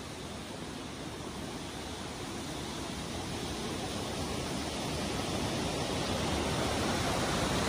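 Fast mountain stream rushing down small rocky cascades: a steady wash of water noise that grows gradually louder.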